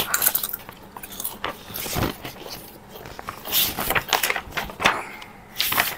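Potato chips crunching as they are bitten and chewed, in short irregular bursts, mixed with the rustle and flap of paper book pages being turned quickly.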